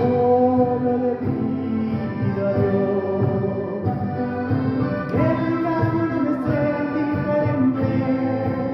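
Orchestra of Andean and Latin American instruments playing, with sustained chords that change every second or so.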